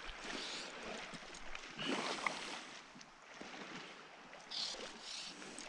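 Faint river water noise with a few soft, brief splashy rushes: one soon after the start, one around two seconds in, and one near the end.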